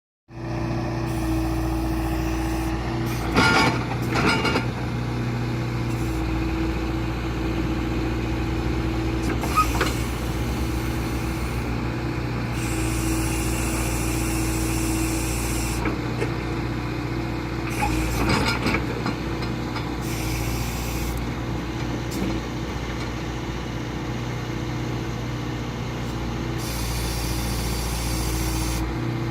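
Skid-steer loader engine running steadily while working a Bobcat 709 backhoe attachment, with stretches of hiss that come and go and a few knocks, the loudest about three and a half seconds in and around eighteen seconds.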